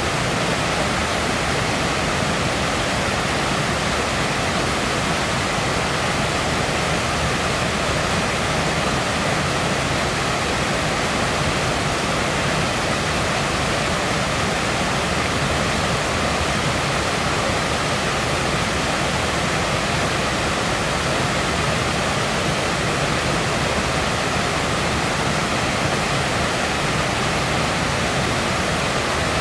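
Floodwater of a small stream swollen by a cloudburst, rushing and tumbling over a low drop in white water: a steady, unbroken rush.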